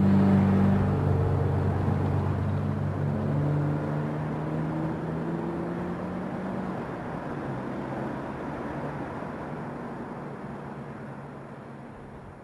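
Final distorted chord of a punk rock song ringing out, a few low notes over a noisy wash, slowly dying away.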